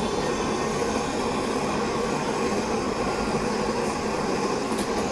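Jeweller's soldering torch burning steadily as silver rings are joined onto the silver boat's sail.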